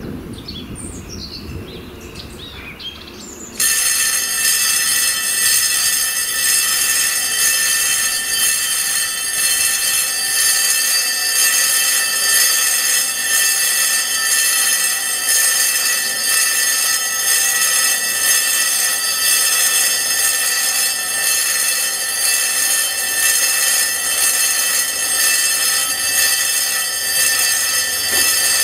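Railway level-crossing electric warning bell starts ringing abruptly about three and a half seconds in and keeps ringing steadily, the crossing's warning of an approaching train. Before it starts, birds chirp faintly.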